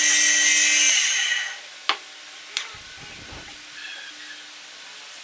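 Homemade table-mounted drum sander running with a steady whine and hiss, then switched off and dying away about a second in. Two sharp knocks follow, likely wood being set down or tapped on the table.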